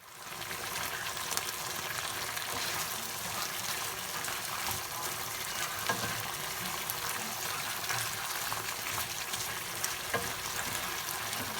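Chicken pieces coated in green curry paste and a little coconut milk sizzling steadily in a pan over raised heat, with a utensil stirring and scraping in the pan.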